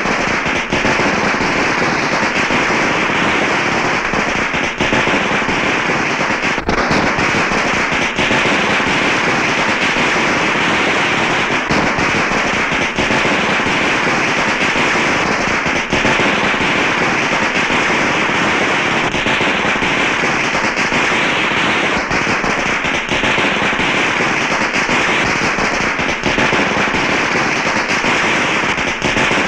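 A string of firecrackers going off in a dense, continuous crackle that keeps up throughout.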